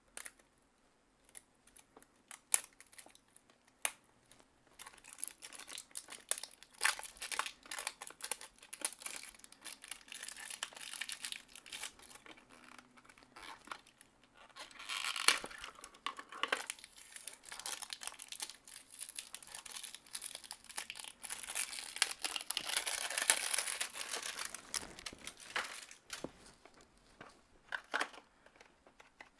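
Plastic wrapping of a Mini Bratz blind capsule crinkling and tearing as it is pulled open by hand, with scattered clicks of the plastic capsule being handled. It comes in bouts, heaviest about halfway through and again in the last third.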